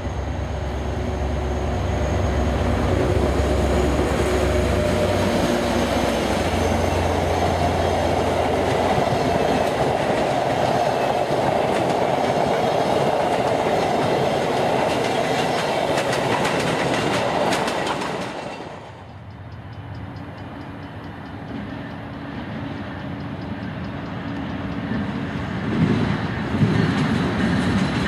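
VIA Rail passenger train passing close by: diesel locomotive drone and wheels clattering over the rail joints. About two-thirds of the way through, the sound drops off abruptly and is replaced by a quieter train sound. That sound builds again near the end as a VIA Genesis diesel locomotive approaches.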